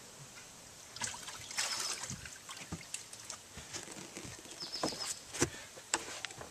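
Water splashing and dripping as smallmouth bass are lifted out of a boat's livewell, with a few sharp knocks in among the splashing.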